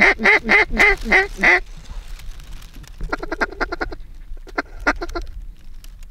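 Loud mallard quacking: a run of about six drawn-out quacks, then a quick series of short quacks about three seconds in and a few more just before five seconds.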